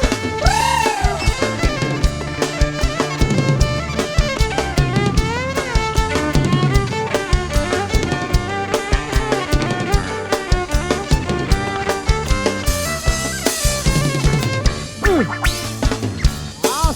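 Instrumental passage of a live kantrum band: a drum kit keeps a busy, steady beat of snare and bass drum under melodic lines that slide up and down in pitch.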